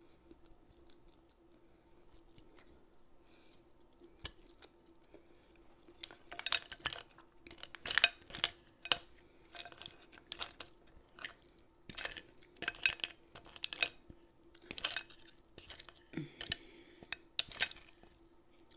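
Close-miked chewing of pasta with clams, with clinks of cutlery and shells on a dish. A few isolated clicks in the first few seconds, then a busy run of short chewing and clinking sounds, over a faint steady hum.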